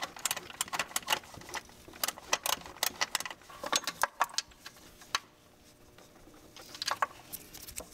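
Irregular sharp clicks and taps of hands working rubber breather hoses and metal hose clamps around an engine's PCV oil trap. The clicks are dense at first, ease off after about five seconds, then come again briefly near the end.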